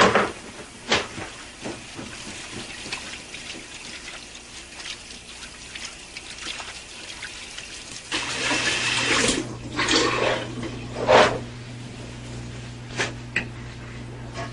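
Water running and splashing, with louder splashes about eight seconds in and again near eleven seconds, and a low steady hum from about eight seconds on.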